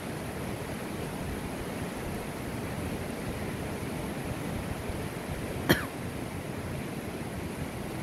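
Steady rush of a mountain river's rapids running over boulders. A single sharp click sounds about five and a half seconds in.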